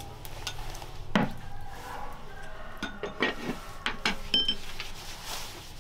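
Tableware knocking and clinking: a spoon scraping and tapping as rice is served from a pot into a bowl, and chopsticks knocking against a plate and bowls. A string of separate knocks, with one short ringing clink about four seconds in.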